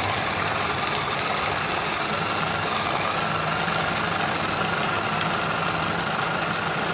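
Small electric food chopper running at a steady speed, its blades chopping onion and ginger in the jar. The motor's whine creeps slightly up in pitch.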